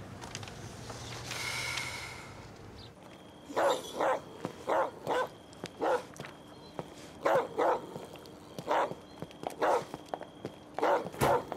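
A dog barking over and over in short barks, singly and in pairs, starting about three seconds in.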